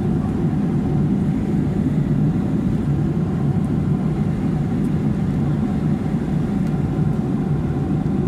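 Steady low drone of an airliner cabin in flight, the jet engines and airflow making an even, unbroken rumble.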